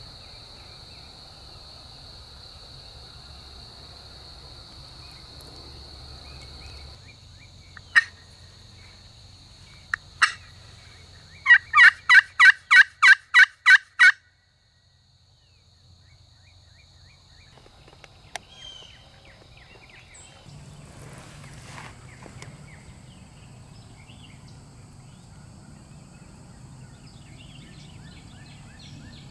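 Two single sharp calls about two seconds apart, then a quick run of about nine loud turkey yelps, roughly three a second, that cuts off abruptly. A steady high insect drone runs under the first several seconds, and afterwards only quieter woodland background with scattered faint bird calls.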